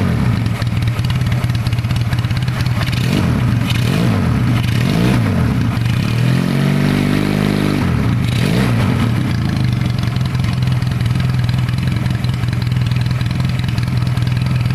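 Yamaha Mio scooter engine idling steadily and revved up and back down several times, the longest rev near the middle.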